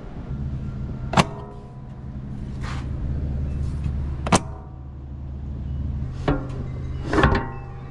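Two sharp metallic clicks about three seconds apart, each ringing briefly, with a few softer knocks between: a Sea-Doo LinQ latch being worked as an aluminium rack is set onto its mounts. A steady low hum runs underneath.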